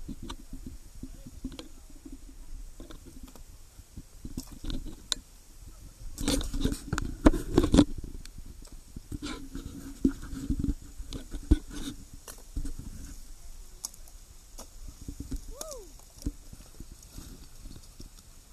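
Footsteps crunching and scraping over loose rocks and rubble, with a loud burst of scrambling crunches about six seconds in.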